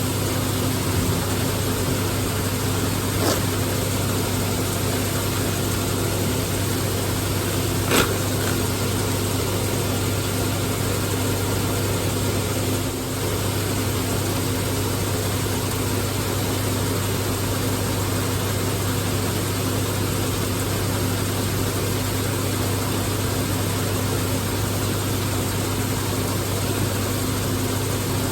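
Tractor engine running at a steady speed while grinding feed, a constant low machine drone. A light click about three seconds in and a sharper knock about eight seconds in.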